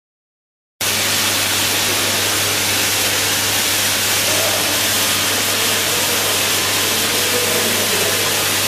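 Animal feed extruder line running: a steady, even rushing machine noise with a constant low hum underneath. It cuts in suddenly about a second in.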